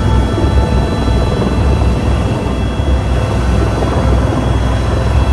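Helicopter turbine and rotor running, heard from inside the cabin: a steady high whine over a low, pulsing rotor throb.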